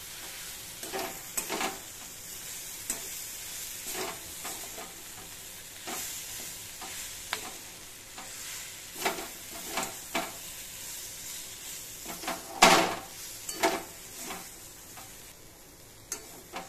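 Metal spatula stirring and scraping masala oats and diced vegetables around a metal kadai, in irregular scrapes and clinks, the loudest about three-quarters of the way through. A steady frying sizzle runs underneath.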